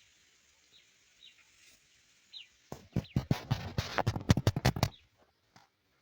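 A few faint, short bird chirps over a soft hiss, then, a little before halfway, about two seconds of loud, dense crackling rustle of cinnamon leaves that stops abruptly.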